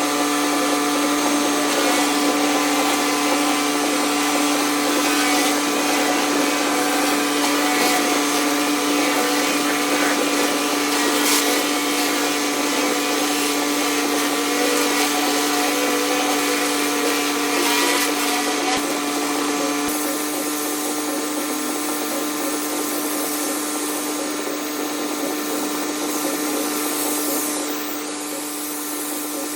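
Hot-water pressure washer running steadily, a constant machine hum with a hiss of high-pressure water spray over it. It eases off a little about twenty seconds in and again near the end.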